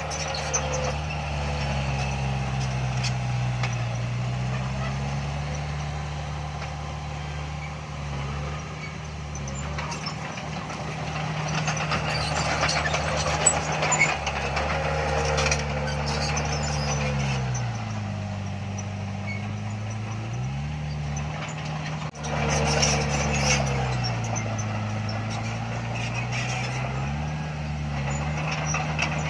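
Heavy diesel engine of earthmoving machinery working under load. Its note sags and recovers a few times as the load changes, with scattered clanks and knocks.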